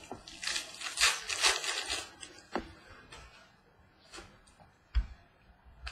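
Trading card pack handled: a crinkly rustle lasting about two seconds, typical of a foil pack wrapper being torn open, then a few light clicks of cards and one sharper knock on the table about five seconds in.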